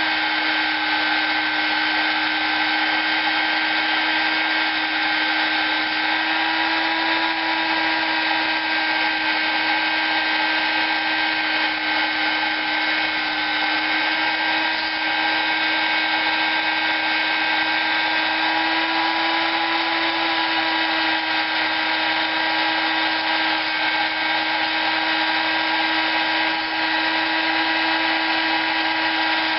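High-speed rotary tool spinning a 180-grit sanding disc, porting and polishing a Predator 212 cylinder head. It gives a steady whine whose pitch wavers slightly as the disc is pressed against the metal.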